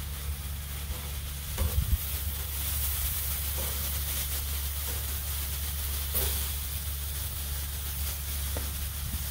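Diced steak sizzling on a hot Blackstone flat-top griddle as it is turned with metal tongs, with a few clicks and scrapes of the tongs on the steel. A steady low hum runs underneath.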